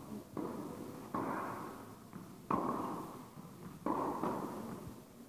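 Tennis rally: sharp pops of rackets striking the ball and the ball bouncing on the court, four in all about a second apart. Each pop rings on in the hall's echo.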